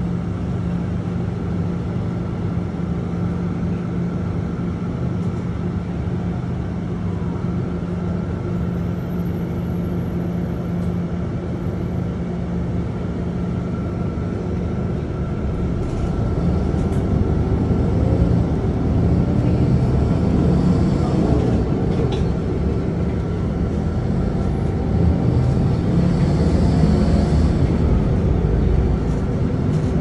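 City street ambience: a steady hum of traffic with an engine-like drone underneath. It grows louder and rougher about halfway through.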